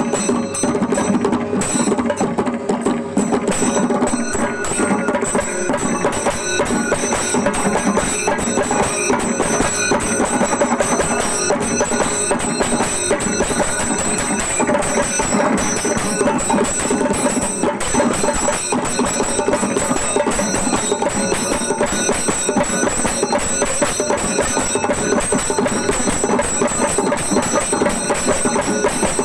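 Kerala temple percussion ensemble playing chembada melam: drums struck in a fast, dense, unbroken rhythm with a steady high ringing over it.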